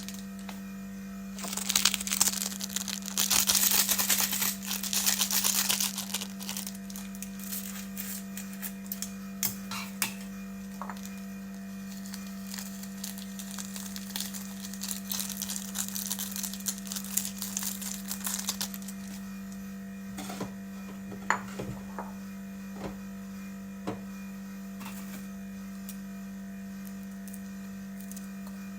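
Plastic packaging crinkling and tearing, loudest in the first few seconds, then quieter rustling and a few sharp clicks and knocks, over a steady low electrical hum.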